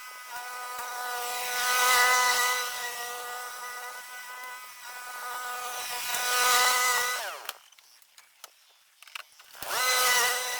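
Whipper snipper (string trimmer) motor running with a high whine, swelling louder twice. About seven seconds in it winds down and stops for about two seconds, then spins back up near the end.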